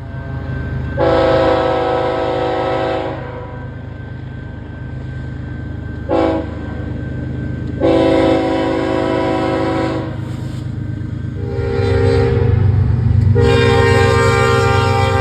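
Locomotive air horn sounding a chord in a series of blasts (a long one, a short one, another long one, then a long blast from about 13 s in that runs on), warning at a grade crossing. Under it runs the low rumble of the moving train.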